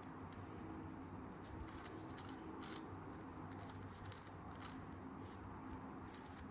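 Plastic layers of a 5x5x5 Rubik's Cube being turned quickly by hand, giving faint, irregular clicks and scrapes over a low steady hum.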